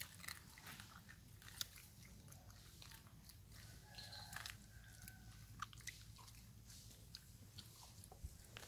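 Macaque mouth sounds, faint and mostly quiet: scattered small wet clicks and smacks, like chewing.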